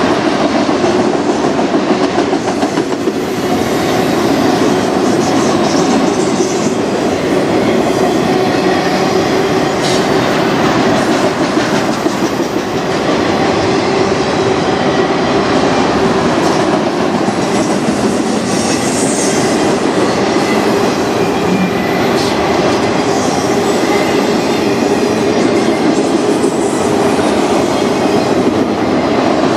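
Freight train of autorack cars rolling past close by: a steady, loud rumble of steel wheels on the rails, with an occasional clack of wheels over rail joints.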